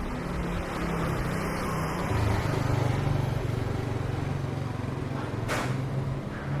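A motor vehicle's engine running close by with a steady low hum, loudest from about two seconds in, over constant street noise. A brief hiss comes near the end.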